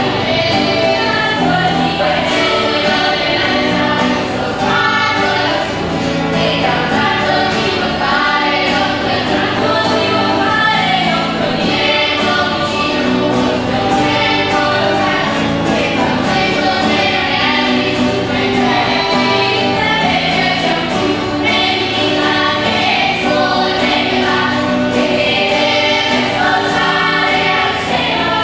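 Female choir singing a traditional song in several-part harmony, steady and continuous.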